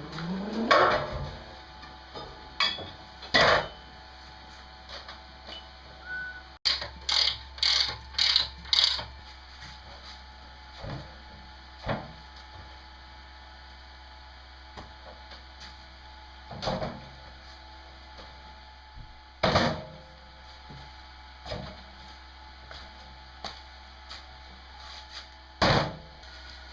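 Intermittent knocks and clanks of hand work on a build, with a quick run of about five strikes a third of the way in and single knocks scattered through the rest.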